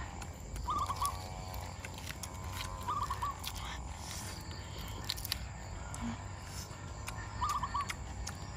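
An animal's call in the forest: a short phrase of three or four quick notes, heard three times, about 1, 3 and 7.5 seconds in. Faint clicks and a low steady rumble run beneath.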